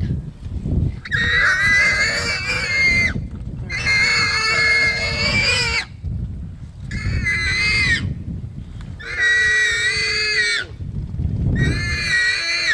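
Warthog screaming in a leopard's grip: five long, high-pitched squeals of a second or two each, with short gaps between. They are the distress screams of a warthog being killed.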